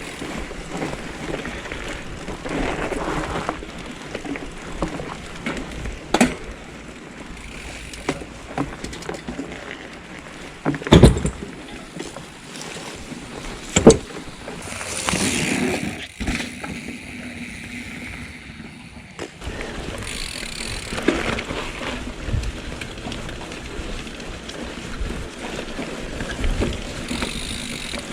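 A Trek Roscoe 7 hardtail mountain bike being ridden on a trail: steady tyre and drivetrain rattle, broken by sharp knocks, the loudest two about eleven and fourteen seconds in.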